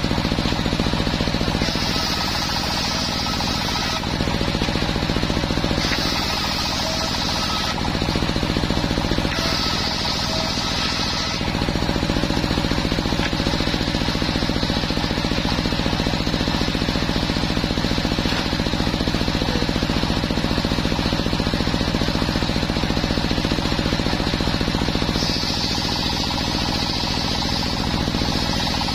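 Homemade bench circular saw running steadily, its blade ripping waru wood in short passes about two, six and ten seconds in and again near the end, spinning free in between.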